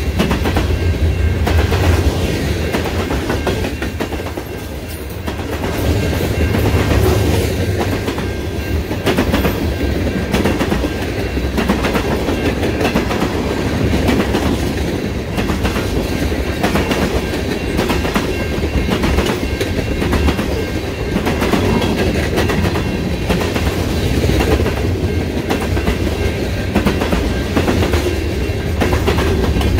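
Freight train of tank cars and covered hopper cars rolling past at close range. A steady heavy rumble carries a repeated clickety-clack of steel wheels over rail joints.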